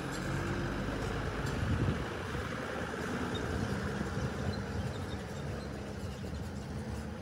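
Diesel engine of a Mitsubishi Fuso tractor unit pulling a loaded flatbed semi-trailer, running at a steady low note as the truck drives slowly past.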